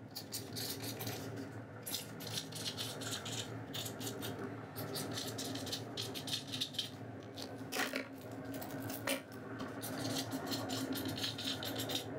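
Felt-tip brush marker scratching across paper in short, irregular strokes as letters are written by hand, with two sharper strokes about eight and nine seconds in.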